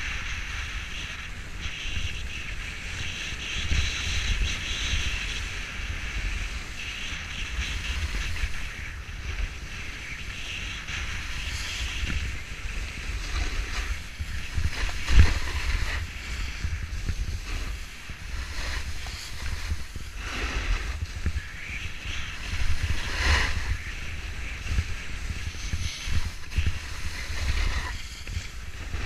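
Wind buffeting the microphone of a camera worn by a skier, over the steady hiss and scrape of skis carving on packed snow. A single thump about halfway through is the loudest moment.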